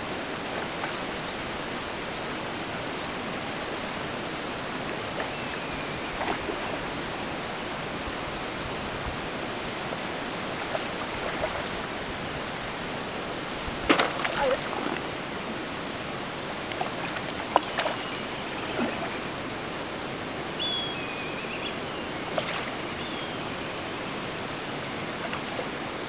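Steady rush of water pouring into a trout pond from an inlet pipe, with a few short sharp sounds on top, the loudest about halfway through and another a few seconds later.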